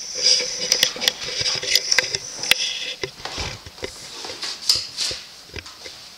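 A small audience clapping, the irregular claps thinning out and dying away near the end.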